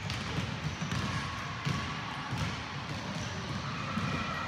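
Basketballs being dribbled on a hardwood gym floor: a steady run of irregular, overlapping bounces from more than one ball.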